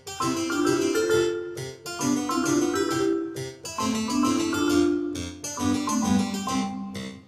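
Instrumental background music: a keyboard-like melody of held notes over regularly repeating plucked chords.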